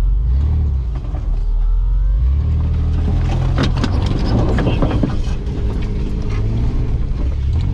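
Off-road 4x4's engine running at low revs as it crawls through dense brush. Branches scrape and crackle against the body and windscreen, most busily between about three and five seconds in.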